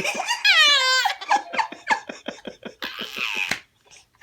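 Four-month-old baby laughing hard: a high squeal falling in pitch, then a fast run of short breathy laughing pulses, ending in a noisy hiss and a brief silence near the end.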